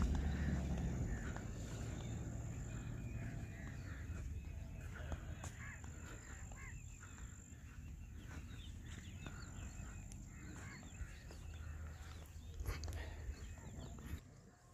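Suzuki Jimny's 1.3-litre four-cylinder engine running at a distance as it drives over sand, a low hum that fades over the first few seconds and swells again near the end. Birds call throughout.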